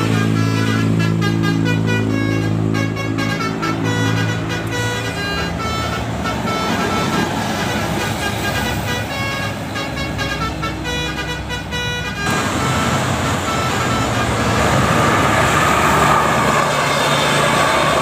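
Basuri "telolet" multi-tone bus horn playing a tune of stepped notes for about twelve seconds, then cutting off abruptly. After it comes road traffic noise from passing vehicles.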